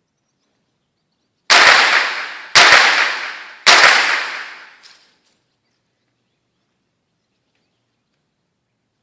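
Three blank pistol shots about a second apart, each sharp crack trailing off with a long echo.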